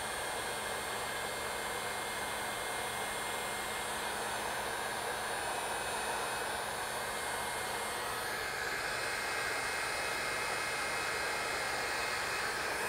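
Electric heat gun running steadily, its fan blowing hot air with a low hum underneath, as it shrinks heat-shrink tubing over a crimped wire splice to seal it watertight.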